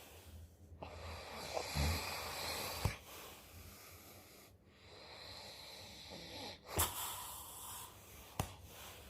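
A man snoring in his sleep: two long, rasping breaths about four seconds apart, each ending in a short sharp snort, with one more brief snort near the end.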